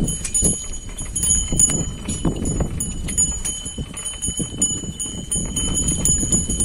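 A pair of bullocks drawing a wooden-yoked harrow across dry tilled soil: hooves treading and the yoke and implement knocking and clinking in an uneven run of small clicks, over a low rumble of soil and wind.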